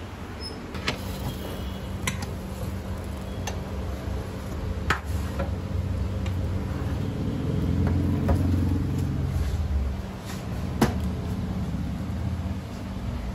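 Low engine rumble of passing road traffic that swells and fades about eight seconds in, with a few sharp clicks and knocks scattered through it.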